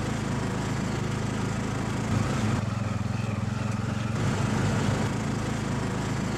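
Auto-rickshaw's small engine running steadily under way, heard from inside the open cabin along with road noise.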